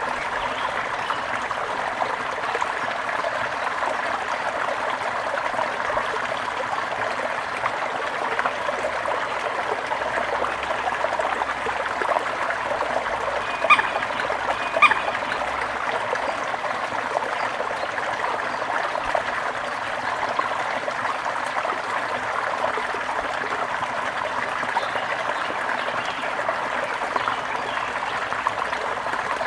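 Water trickling and babbling steadily in a small stream. About halfway through, a bird gives two short calls about a second apart.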